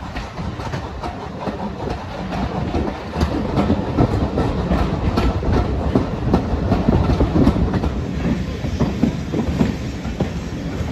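Passenger train running along the line, heard from an open carriage window: a steady rumble with the wheels clicking and clattering over the rail joints, loudest about midway.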